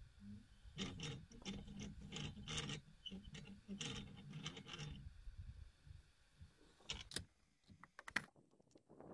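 A rope rubbing over a well pulley, which creaks in a run of short rasping strokes for about four seconds, followed by a few sharp clicks near the end.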